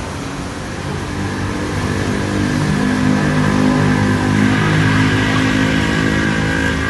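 An engine droning steadily, growing louder over the first few seconds.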